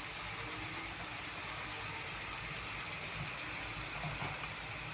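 Tata Hitachi excavator's diesel engine running steadily.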